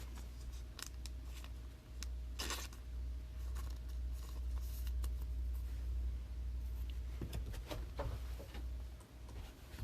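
Sparse light clicks and soft rustles of handling at a desk, the strongest about two and a half seconds in, over a steady low hum.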